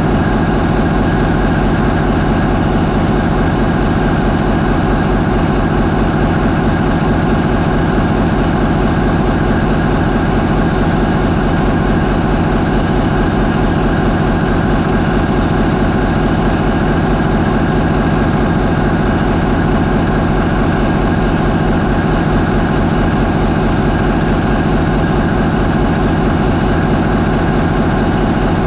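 MAN 20V28/33D STC twenty-cylinder V diesel marine main engine running steadily at 550 RPM.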